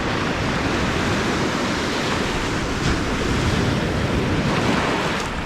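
Ocean surf washing onto the beach, a steady rushing noise, with wind on the microphone.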